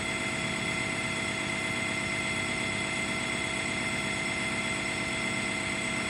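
Steady machinery hum with several steady tones, unchanging throughout, with no clicks or other distinct events.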